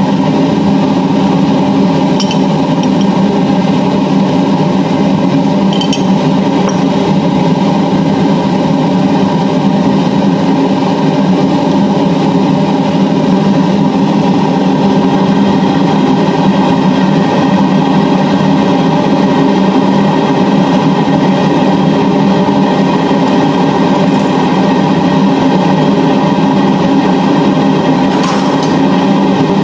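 A loud, steady mechanical hum made of several fixed tones that never changes, with a few faint clinks of a metal spoon against a glass jar.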